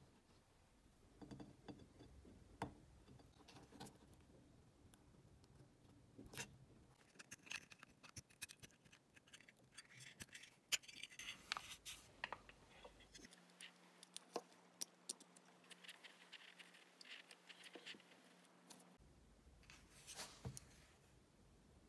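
Faint handling noise of an iPod mini being reassembled by hand: scattered light clicks and scrapes as the battery and internals are fitted into its aluminium casing, the sharpest click about eleven seconds in.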